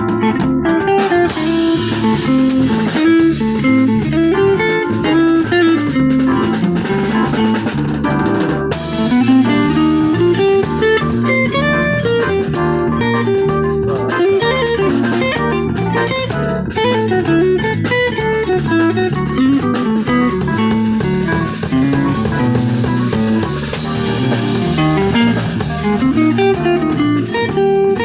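Live band playing, a guitar line over bass and drum kit.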